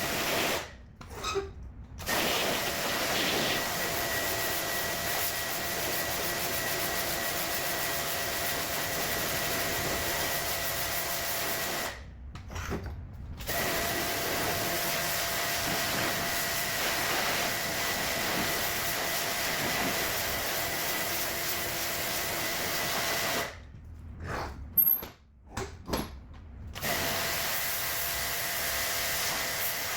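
Steady hiss and whine of a small motorised cleaning machine running. It cuts out briefly three times: about a second in, about twelve seconds in, and for a few seconds near the end.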